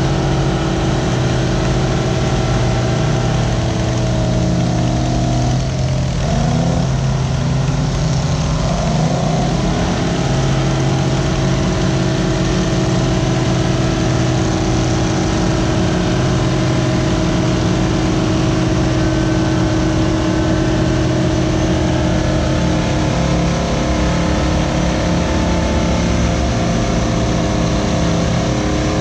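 Euclid TC-12 crawler bulldozer's twin two-stroke GM Detroit Diesel engines running under load as it pushes dirt. The engine note holds steady but sags and recovers a couple of times between about six and ten seconds in.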